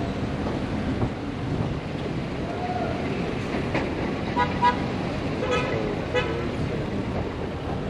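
Street traffic with a steady background of engines and road noise, and several short horn toots around the middle; faint voices in the background.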